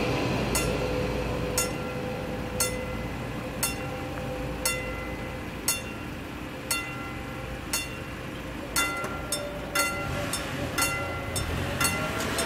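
Level-crossing warning bell striking about once a second, over the rumble of a passed train fading away in the first few seconds. In the last few seconds the strikes come about twice as fast.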